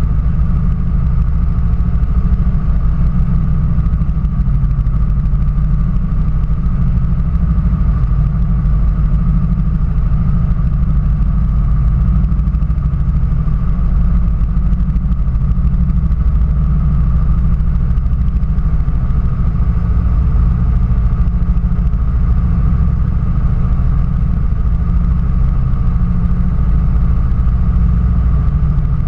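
Rail speeder's small engine idling steadily, a low, even running sound with a faint higher whine above it.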